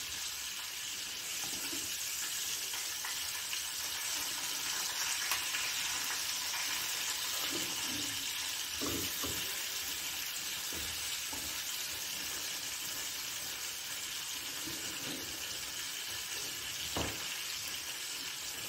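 Tandoori-marinated chicken sizzling in hot oil: a steady frying hiss, with a few soft knocks in the middle and a single tap near the end.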